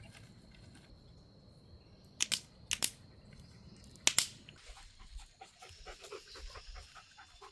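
A few sharp cracks, a pair about two seconds in and another about four seconds in, then a dog panting rhythmically.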